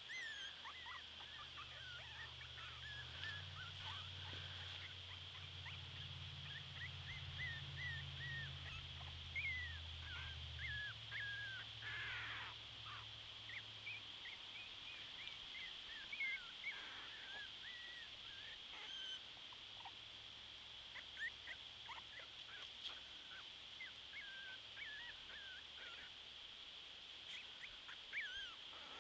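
Very young miniature pinscher puppies squeaking and whining in short, high, wavering cries, scattered throughout, over a steady high-pitched drone.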